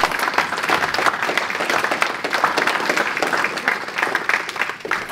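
Audience applauding: many people clapping at once, a dense, steady patter of hand claps.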